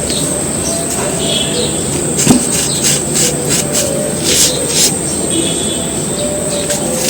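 Soft, dry cones crunching and crumbling in a run of short crackles, the sharpest about two seconds in, over a steady hiss with faint bird calls behind.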